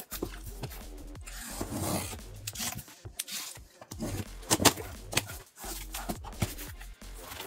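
Packaging of a PC case being opened and handled: irregular rubbing, scraping and rustling, with a sharp knock about four and a half seconds in.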